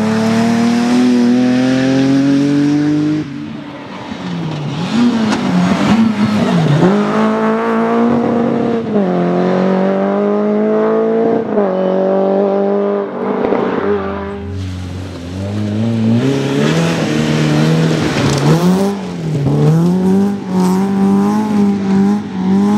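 Rally cars, one after another, accelerating hard on a tarmac stage: each engine climbs in pitch through a gear, drops back at the shift and climbs again, then fades as the car pulls away. The first is a BMW E36 3 Series rally car.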